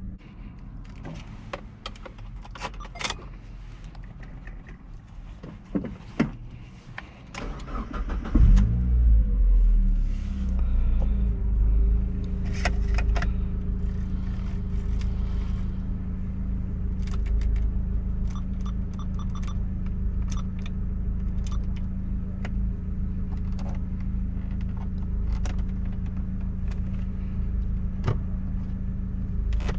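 Keys jingling and clicking in the ignition, then the Mazda Miata's 1.8-litre four-cylinder engine starts about eight seconds in. It revs briefly and settles into a steady idle, with small clicks from the dashboard controls over it.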